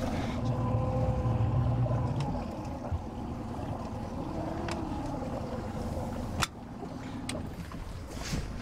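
Small fishing boat's engine running low and steady, with a few sharp knocks; after a louder knock about two-thirds through, it carries on more quietly.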